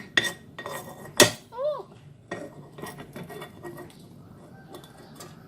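A utensil clinking and scraping against a pan while burnt bits are skimmed out, with one sharp knock about a second in and fainter clicks after.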